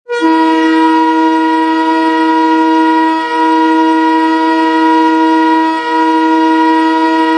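Muskegon Lumberjacks ice hockey goal horn sounding one long, loud, steady blast, a chord of a few held notes. It starts abruptly and holds for about seven seconds.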